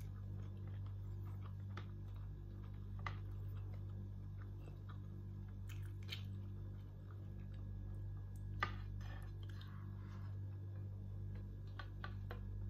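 Eating shrimp by hand: faint chewing and scattered small clicks of handling and biting, one sharper click about eight and a half seconds in, over a steady low hum.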